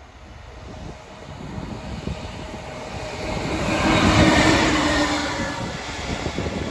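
GB Railfreight Class 66 diesel locomotive (EMD two-stroke V12) passing close by. Its engine note and rumble grow louder to a peak about four seconds in, then fade as it moves away.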